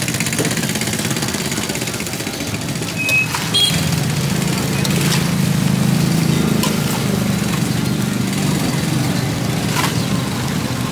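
An engine running steadily, growing louder for a few seconds in the middle, with scattered clicks and clatter and a short high beep about three seconds in.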